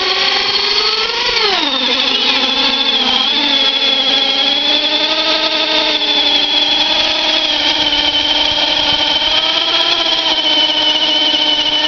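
A small vehicle's motor held at high, steady revs while its tyre spins in place on asphalt in a burnout. The pitch climbs about a second and a half in, then holds with a slight sag, and the spinning tyre adds a high whine.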